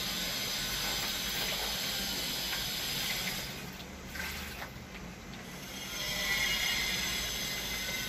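Water poured from a small metal pot onto the soil at the base of a young tree, over a steady hiss.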